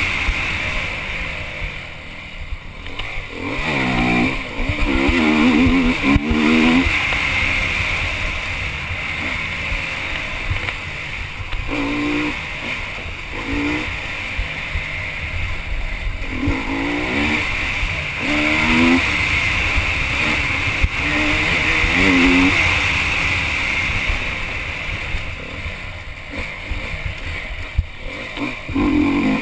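Honda enduro motorcycle engine heard on board at race pace, revving up and dropping back again and again as the rider accelerates and shifts between corners, with knocks and rattles from the bike over rough ground.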